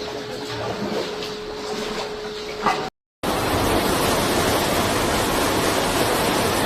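Floodwater rushing: a steady, dense roar of moving water that comes in loud after a short break about three seconds in. Before the break, a quieter noisy background with a steady hum.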